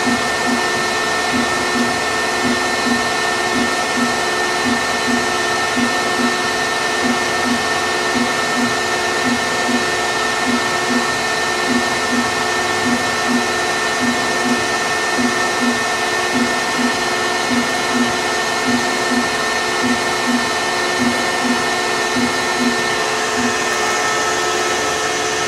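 1994 Bridgeport EZ Path CNC lathe running its demo program: a steady mechanical hum and whine with several steady tones, and a low pulse repeating about twice a second that stops near the end.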